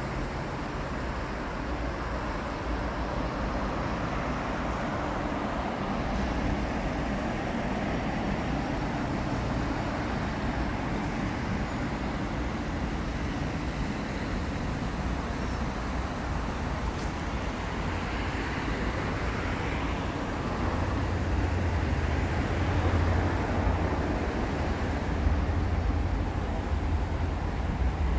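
City street traffic: steady road noise of passing cars, with a deeper, louder rumble of a heavier vehicle about two thirds of the way through.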